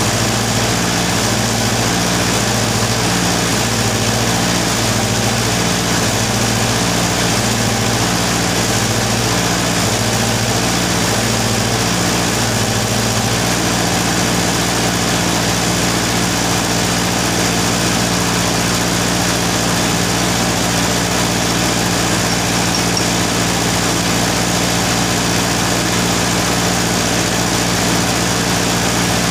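Arc welding machine humming steadily. Its low hum pulses while the arc is in use for the first dozen or so seconds, then holds steady once welding stops.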